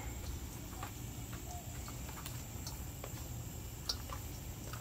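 Hands turning and rubbing seasoned whole snapper in a stainless steel bowl, making scattered, irregular small wet clicks and taps over a steady low hum.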